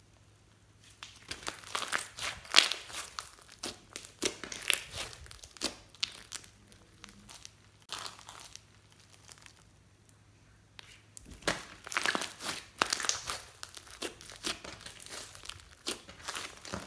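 Thick yellow slime being kneaded, stretched and pressed by hand, giving dense squishing, crackling and popping as trapped air pockets burst. It comes in two busy stretches with a quieter pause in the middle.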